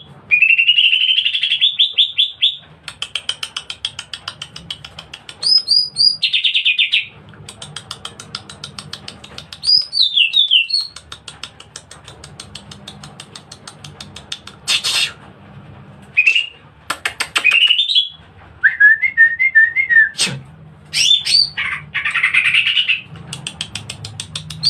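Green leafbird (cucak ijo) singing a loud, varied song. It alternates whistled phrases that slide up and down with fast rattling runs of repeated notes and sharp high notes.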